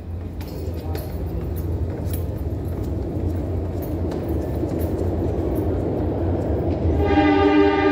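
Subway train approaching through the tunnel: a low rumble that grows steadily louder, with light clicking and rattling from the rails. About seven seconds in, the train's horn starts sounding a steady chord.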